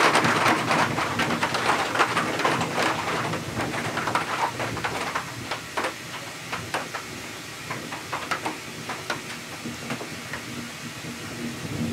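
Heavy rain of a summer cloudburst, a dense hiss that eases off steadily, with separate drops ticking more and more plainly as it thins.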